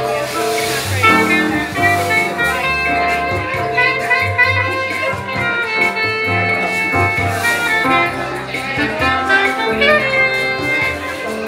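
Live jazz: a soprano saxophone plays a melody over keyboard accompaniment with a moving low line.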